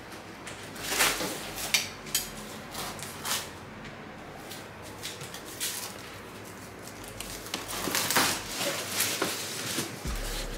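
A large cardboard box and its packing tape being pulled and torn open: irregular rustling, scraping and tearing, with a few louder scrapes.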